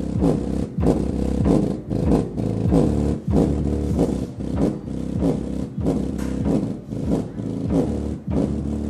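Bass-heavy music with a fast beat and sliding bass notes, played loud through an Infinity Primus 1270 12-inch (300 W RMS) car subwoofer in a large enclosure.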